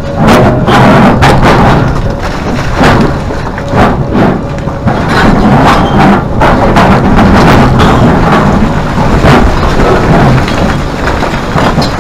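Hidromek 390 excavator's bucket tearing into a pile of broken rock: repeated sharp knocks of stone on steel and rocks tumbling, over the heavy rumble of the machine working. Very loud throughout.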